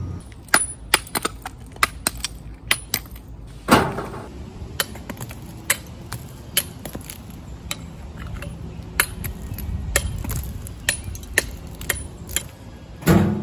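Hammer knocking old mortar off salvaged bricks: a run of sharp, irregular clacks, with two heavier clunks, one about four seconds in and one near the end.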